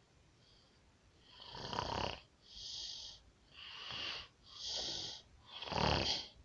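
A pig snoring: about a second in, a run of five noisy snoring breaths begins, roughly one a second, alternating deeper and thinner ones.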